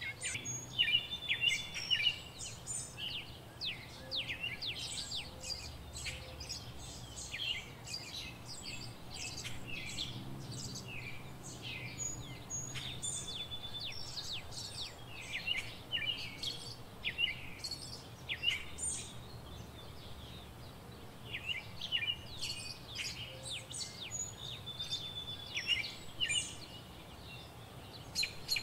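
Small birds chirping over and over, many short quick chirps and whistled notes that rise and fall, over a faint low steady hum.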